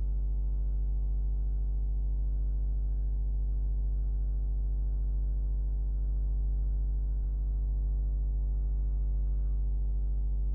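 Steady low electrical hum with a stack of higher overtones, unchanging in level and pitch.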